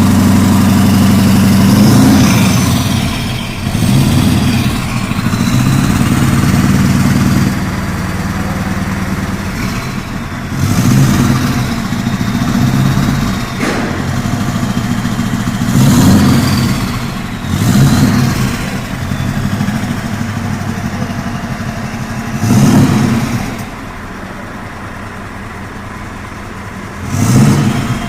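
Scania R620's 16-litre V8 diesel through a straight-through exhaust, idling and blipped on the throttle about six times: short revs that rise and drop back to idle. After a couple of the blips, a high whistle glides down.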